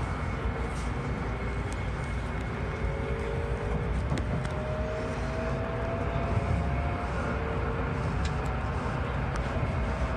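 Shinkansen Nozomi heard from inside the passenger cabin as it pulls away from the station: a steady low rumble of the running train with a whine that glides slowly upward as it picks up speed.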